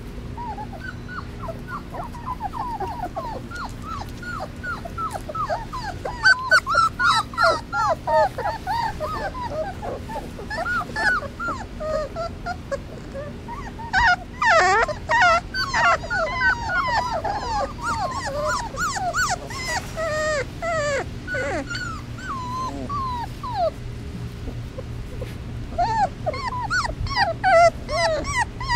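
A litter of three-week-old basset hound puppies whimpering and crying together for their mother, many short, high cries overlapping and bending up and down in pitch. The crying swells louder about six seconds in and again about fourteen seconds in.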